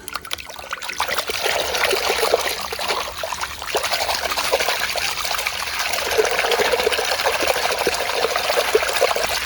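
Water running and splattering over a dirt-covered toy as it is washed clean, with many small spatters and taps.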